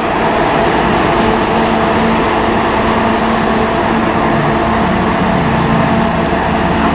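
Class 43 HST power car's MTU V16 diesel engine running loudly and steadily at close range, a constant engine hum that holds level throughout.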